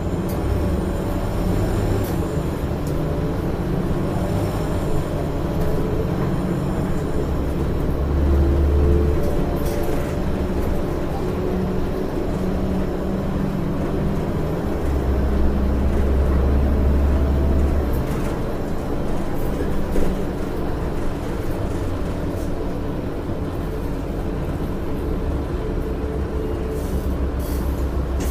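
Inside a 2006 Orion VII transit bus under way: its Cummins ISL9 diesel and Allison automatic transmission running steadily, with a whine that slides up and down in pitch. A low rumble swells twice, about eight seconds in and again from about fifteen to eighteen seconds. Now and then there is a short rattle or click.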